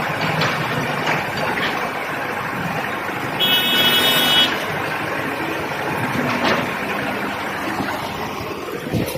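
Concrete pump truck running with a steady mechanical noise and a few faint knocks. A short high beep, about a second long, sounds about three and a half seconds in.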